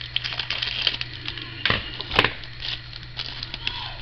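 Foil wrapper of a Contenders football card pack crinkling and being torn open by hand: a run of quick, sharp crackles, with two louder rips about halfway through.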